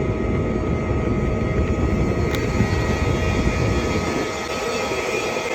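MIG welding arc running steadily during a vertical-up weld.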